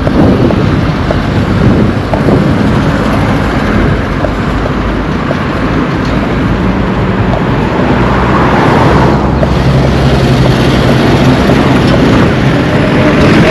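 Road traffic: motor vehicles running and driving past close by, with a steady engine hum in the second half, and wind buffeting the microphone.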